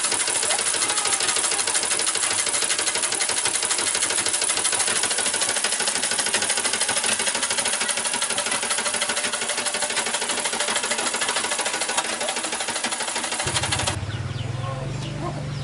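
Foot-treadle sewing machine with a cast-iron treadle stand, stitching steadily: a fast, even clatter of needle strokes that stops near the end.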